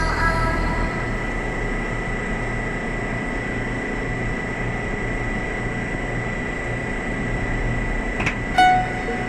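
Steady hum and hiss of refrigerated container units running on a ship's deck, with a constant high whine. Near the end a sharp click, then one short pitched beep.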